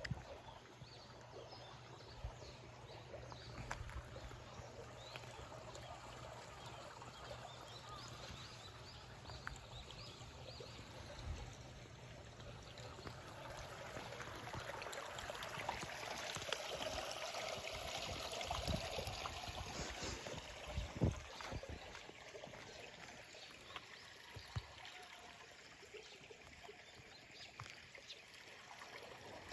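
Faint outdoor background noise like running water or wind, swelling for several seconds about halfway through and then fading, with a few light knocks.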